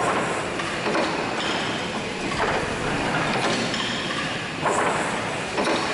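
Hathorn Davey steam pumping engine running: a steady clatter of valve gear and moving rods, with heavier knocks every second or two.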